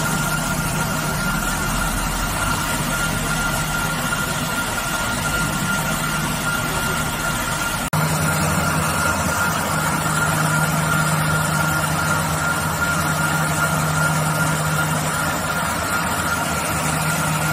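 Dazzini PD1500 diamond wire saw running, its drive wheel pulling the diamond wire through a block of Carrara white marble: a steady mechanical drone with a constant high whine over a low hum, stepping up slightly in level about eight seconds in.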